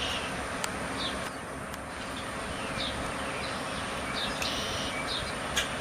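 Small songbirds chirping: short, high, repeated chirps at irregular intervals about every half second to a second, over steady outdoor background noise.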